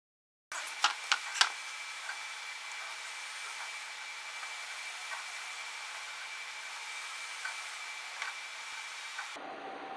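Steady fan-like whirring hiss with a thin high whine running through it, broken by three sharp knocks about a second in. Near the end the noise shifts to a lower, hum-like tone.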